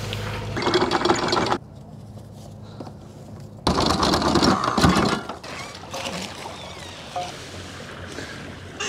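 Electric anchor windlass hauling in anchor chain, the chain clattering over the gypsy in a loud rattling burst of about a second and a half midway through, followed by faint clinks as the chain is handled.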